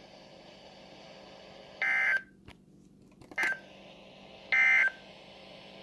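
Emergency Alert System end-of-message data bursts: three short, buzzy two-tone digital squawks, each under half a second and spaced about a second apart. They signal the end of the alert message.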